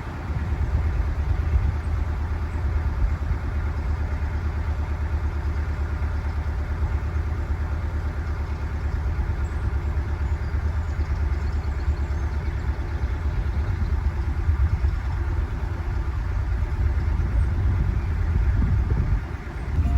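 Narrowboat engine running steadily with a low, even chugging.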